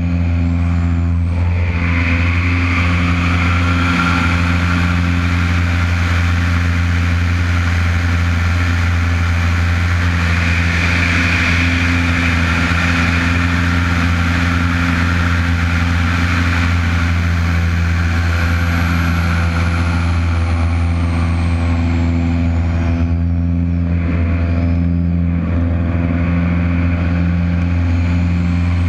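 Lycoming piston engine and propeller of an aerobatic monoplane running steadily at an even pitch in flight, with air rushing past a wing-mounted camera. A faint high whine slides downward about two-thirds of the way through.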